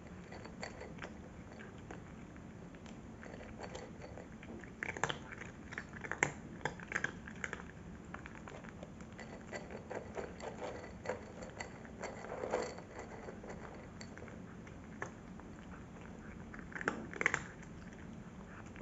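A cat crunching dry kibble: irregular clusters of crisp cracks with short pauses between them, loudest about five to seven seconds in, around twelve seconds, and again near the end.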